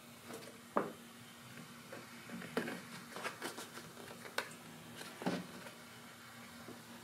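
Handling noises from a coolant vacuum-refill kit's hose and brass fittings being worked by hand: about half a dozen short clicks and knocks, some with a soft squish, over a faint steady hum.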